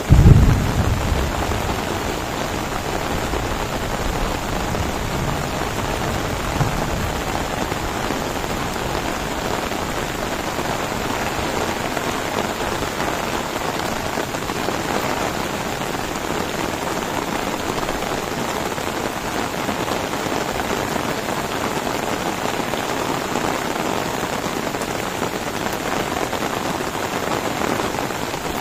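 Heavy rain falling steadily on flooded rice paddies and foliage, an even hiss. A loud deep rumble comes right at the start and fades within about two seconds.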